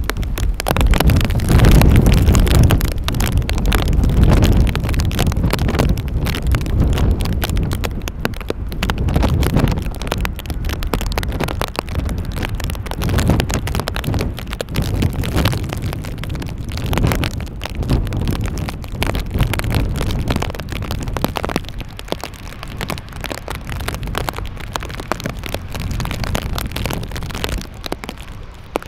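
Strong gusty wind buffeting the microphone, a rumbling, crackling rush that is loudest in the first few seconds and then eases.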